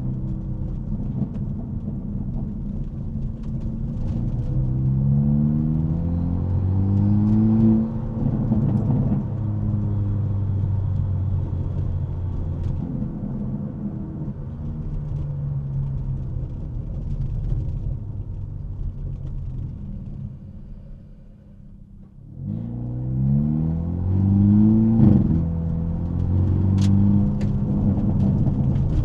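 Hyundai Elantra N's turbocharged four-cylinder exhaust under way, heard from inside the trunk: the engine note climbs under acceleration and breaks off, runs steadily for a while, drops away briefly, then climbs hard again. A few sharp exhaust pops crack through, the clearest near the end.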